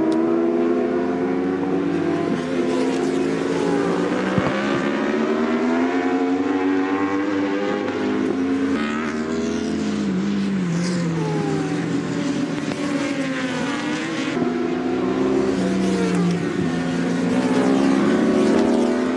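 Racing superbike engines at high revs, their pitch rising and falling over and over as the bikes accelerate, shift and brake past the trackside.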